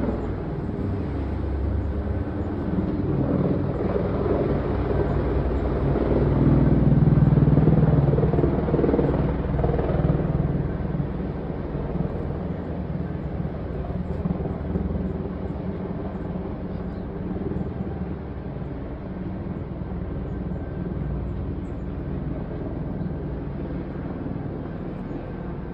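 A low, steady rumble of vehicle noise that swells louder about six seconds in and eases off again after about ten seconds.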